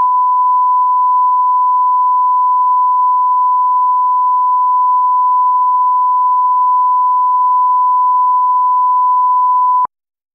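Steady, loud 1 kHz line-up test tone, a single unwavering pitch played with SMPTE colour bars as the reference for setting audio levels; it cuts off abruptly near the end.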